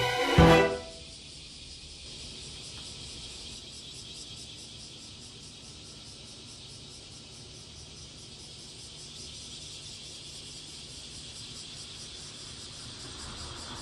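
Background music cuts off in the first second, leaving faint outdoor ambience: a steady, high, fast chirring typical of insects, over a low background hum.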